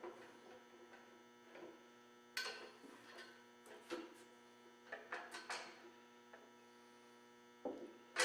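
A few light metal knocks and scrapes as the drill press table bracket and its gear rack are eased back down the column, over a steady electrical hum.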